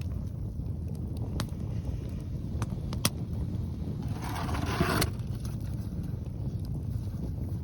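Strong wind buffeting the microphone with a steady low rumble, over a wood campfire giving a few sharp crackling pops. About four seconds in, a brief rushing hiss lasts about a second.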